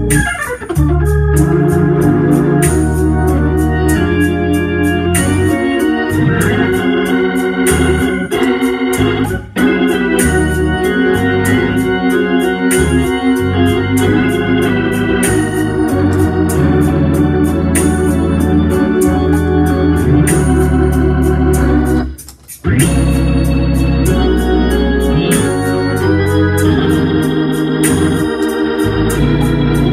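Hammond organ playing sustained chords over a moving bass line. There is a brief pause in the playing about twenty-two seconds in before it resumes.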